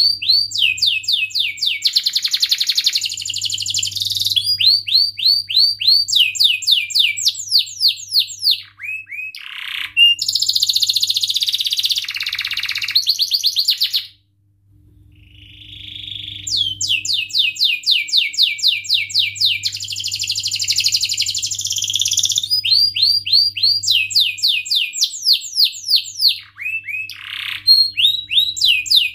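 Domestic canary singing a long, loud song of fast repeated sweeping chirps and rolling trills, with a brief pause about halfway through.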